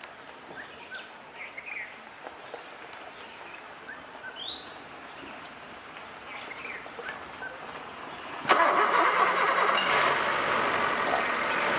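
Birds calling, with rising whistled notes and short chirps. About eight and a half seconds in, a vehicle engine starts suddenly and keeps running loudly.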